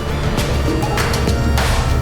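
Background music with a heavy bass and regular hits about every half second.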